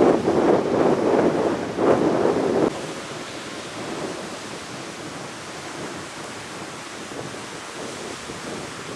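Rough sea surf pounding the beach, with gusty wind buffeting the microphone. The loud buffeting drops away suddenly about three seconds in, leaving a steady, quieter wash of surf.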